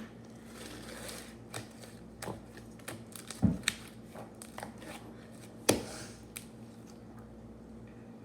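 Slime being worked in the hands: scattered small wet clicks and pops, with a heavier thump about three and a half seconds in and a sharp click near six seconds.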